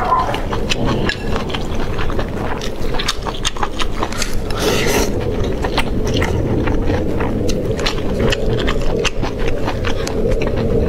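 Close-miked eating: a person chewing food with many wet smacking clicks, and a brief rush of noise about halfway through.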